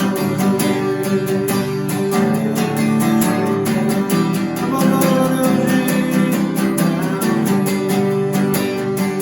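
Acoustic guitar strummed in a steady rhythm, playing a worship song.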